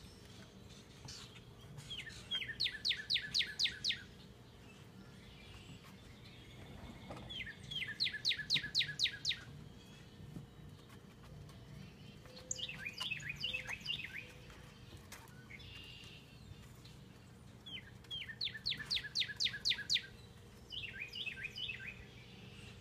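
A songbird singing: bursts of about eight to ten quick, downward-slurred whistled notes, each burst lasting about a second and a half and repeating every few seconds, over a faint steady hum.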